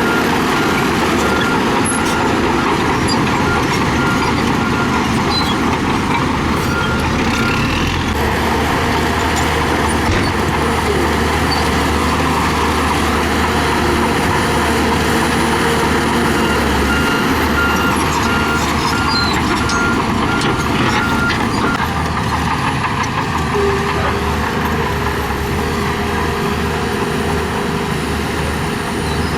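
Heavy construction machinery, a bulldozer and dump trucks working gravel, with diesel engines running steadily. A high, rapid beeping alarm sounds for the first several seconds and again about halfway through.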